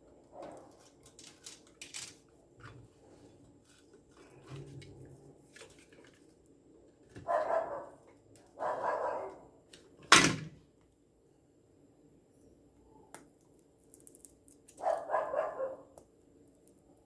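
A dog barking three times, twice close together and once more near the end, over faint clicks and rustles of coaxial cable and its foil shield being handled, with one sharp click about ten seconds in.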